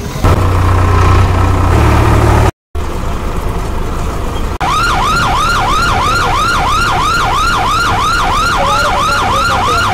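Tractor engine running while driving on a road, with a brief dropout about two and a half seconds in. From about halfway, a loud electronic siren-like warble sounds over the engine, dipping and rising in pitch about three times a second.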